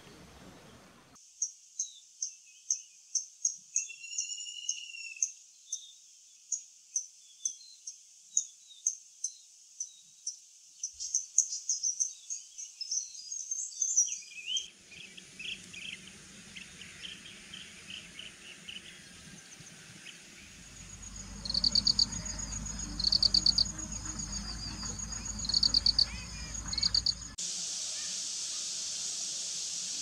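Outdoor nature ambience of insects and birds. It opens with short high chirps repeated about one or two a second. About halfway it changes abruptly to lower chirps over a low rumble, with several bursts of rapid high trills, and near the end to a steady high hiss.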